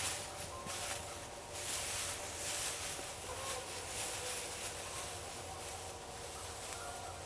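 Evening chorus of insects in the woods: a steady high hiss that swells and fades in waves, with faint steady tones lower down.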